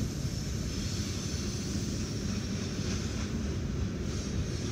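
Freight cars rolling past on the rails: a steady rumble of steel wheels on track, heard from inside a car.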